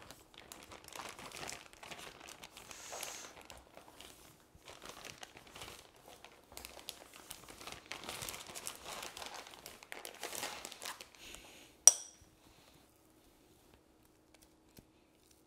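Clear plastic piping bag crinkling and rustling as madeleine batter is scraped into it with a spatula, with the soft scrape of the spatula against a glass bowl. Near the end, a single sharp knock, the loudest sound.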